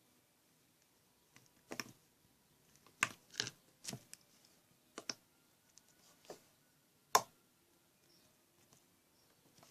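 Homemade slime being squeezed and worked by hand, giving a string of sharp, irregular clicks and pops, loudest about three seconds in and again about seven seconds in.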